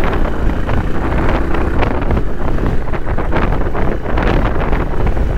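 Steady wind rushing and buffeting against the microphone of a camera on a moving motorcycle, with the Honda NC750X's engine running underneath.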